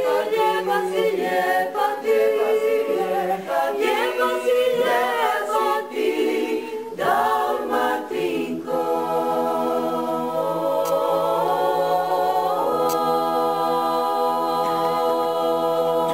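Unaccompanied choir singing in harmony, closing on a long held chord in the last few seconds.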